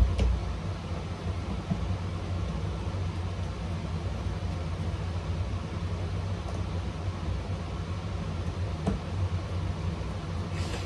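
Steady low mechanical hum, like a fan or machine running in the room, with a knock at the start and a faint click about nine seconds in.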